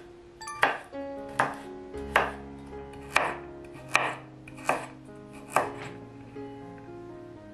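Chef's knife dicing a root vegetable on a wooden cutting board: seven sharp chops about three-quarters of a second apart, stopping about six seconds in. Soft background music plays underneath.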